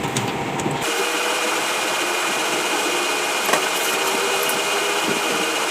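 A small motor running steadily with a constant whine, starting about a second in.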